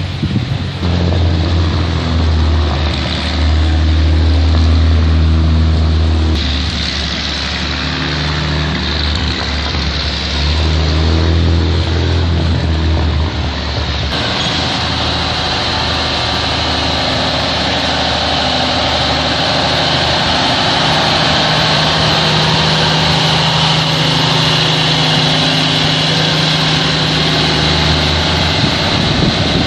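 Large engines idling, a steady low hum. About halfway through, the sound changes and a steady high hiss joins the hum.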